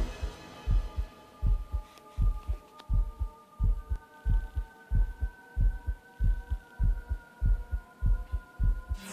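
Background music: a heartbeat-like double thump in the bass about every 0.8 s, under held synth tones.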